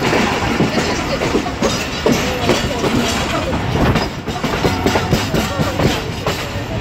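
Wheels of a moving passenger train coach running on the rails, with rapid irregular clatter and knocks as they cross rail joints and points, heard close to the bogie from an open coach doorway.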